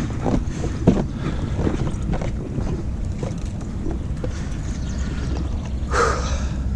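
Wind buffeting the microphone in a steady low rumble on a boat. A few sharp knocks in the first second, and a short rush of noise about six seconds in.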